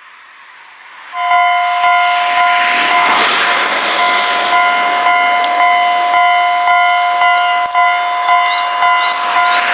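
Japanese railway level-crossing warning bell starting up about a second in and ringing steadily, a loud electronic clang repeating about twice a second.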